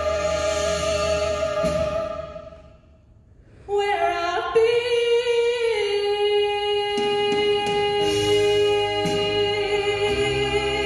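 A woman singing long sustained notes into a handheld microphone, amplified through a PA. She breaks off briefly about two seconds in and comes back on a long held note.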